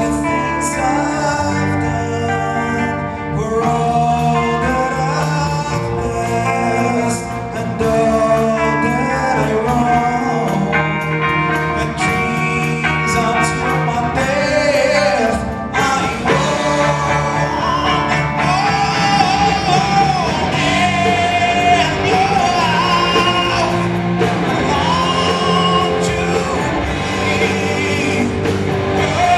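Rock band playing live with a singer, the sound filling a large hall.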